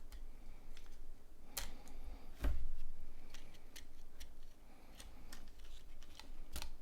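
Scattered small clicks and taps of a plastic mobile phone's housing and parts being handled and pried apart during disassembly, with one louder knock about two and a half seconds in.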